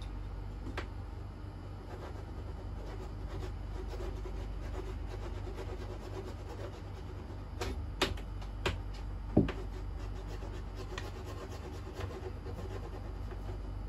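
A cat pawing at a feather wand toy and the wooden rope swing beside it: soft rubbing and scuffing with scattered light taps, and a few sharper knocks a little past the middle, over a steady low hum.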